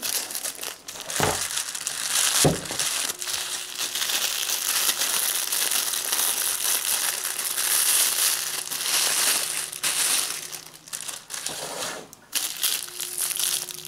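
Clear plastic wrapping crinkling and rustling without a break as it is pulled and crumpled off a sheathed knife, with two sharp knocks in the first few seconds.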